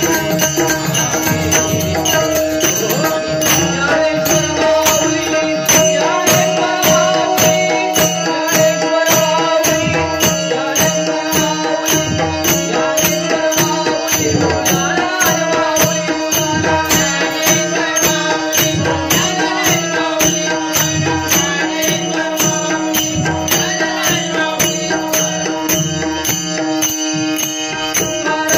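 Marathi devotional bhajan music: male voices singing over a steady held drone and an even percussion beat, the closing Bhairavi of a bhajan session.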